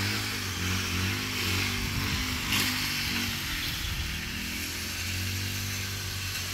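An engine running steadily with a low hum, its pitch wavering slightly, under a constant hiss.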